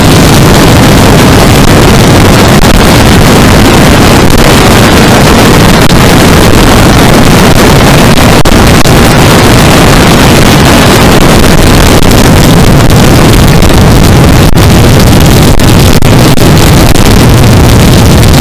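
Yamaha R3's 321 cc parallel-twin engine running steadily at highway speed, mixed with heavy wind rushing over the microphone. The sound is loud and even, without a break.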